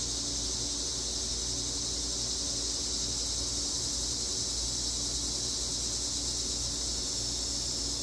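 Cicadas singing: one steady, high-pitched chorus drone, with a faint low hum underneath.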